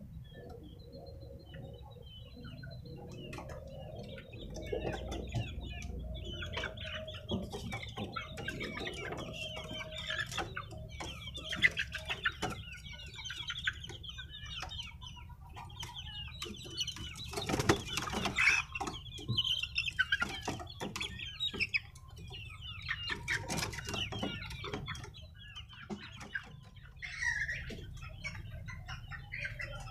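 Young chickens clucking and squawking in a bamboo coop as they are grabbed by hand, with wings flapping and many short knocks and rattles against the cage slats. The loudest flurry comes a little past the middle.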